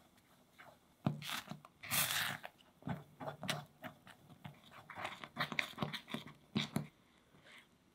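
Rubber spatula stirring and scraping thickening custard in an enamel saucepan: irregular scrapes and soft clicks against the pot, with a longer swishing scrape about two seconds in.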